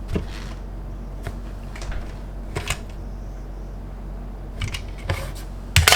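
Scattered small plastic clicks and taps from handling a DX Zero-Two Progrise Key toy, about eight in all, over a low steady hum.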